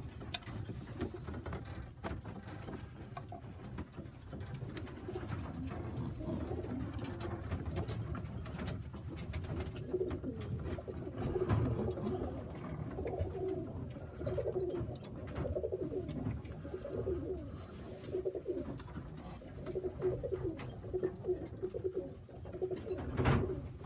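Several racing pigeons cooing, low wavering coos overlapping one after another, with light clicks and taps among them.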